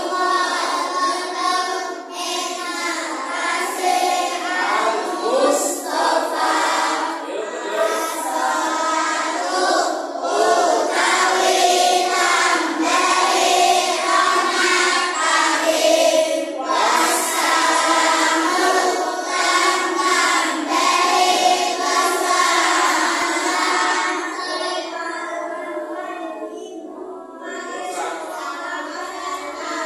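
A group of children chanting aloud together in unison, many young voices in a sing-song recitation. It grows a little quieter near the end.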